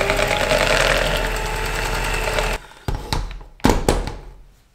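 Electric hand mixer with twin wire beaters running steadily in thick churros dough in a plastic bowl, switched off abruptly about two and a half seconds in. A few sharp knocks follow, the loudest near the end.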